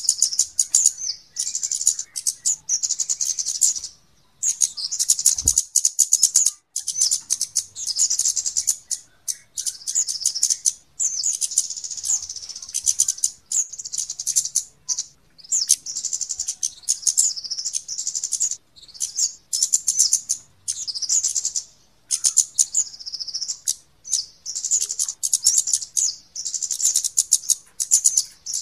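Flowerpecker lure call (kemade): rapid, high-pitched chattering ticks in bouts of a second or two with short breaks, repeated throughout, a bird-trapping lure recording meant to draw in flowerpeckers.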